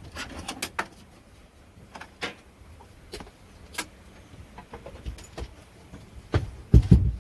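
Belongings being handled and moved: scattered clicks and knocks, then a cluster of heavy thumps near the end as something is set down on the floor.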